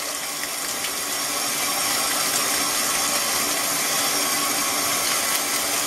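Kitchen tap running steadily into a stainless steel sink.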